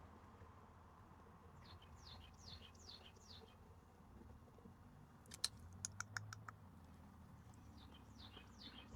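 Quiet room tone with faint birdsong: two runs of four or five quick, falling chirps. About five seconds in comes a short cluster of sharp clicks, like keyboard or mouse clicks.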